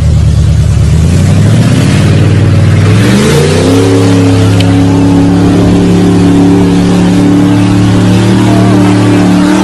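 Pickup truck engine revving up over a couple of seconds and then held at high revs as the truck ploughs through deep muddy water, its note dipping slightly near the end.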